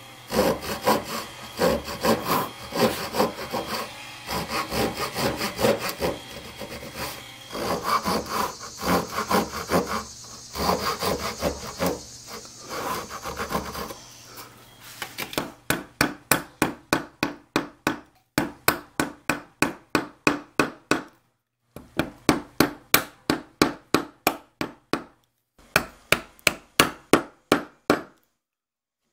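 Japanese pull saw cutting kerfs into the end of an oak board, in quick uneven strokes for about the first fourteen seconds. Then a hammer striking a chisel to chop out the waste between the cuts, about three sharp blows a second, in runs broken by short silences.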